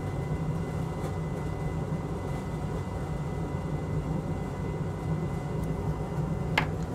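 A steady low machine hum with a faint high steady tone above it, like a fan or bench equipment running. A single short click comes near the end.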